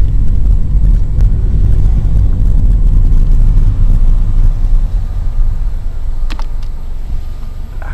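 Steady low rumble of a car moving slowly, heard from inside the cabin, easing a little near the end.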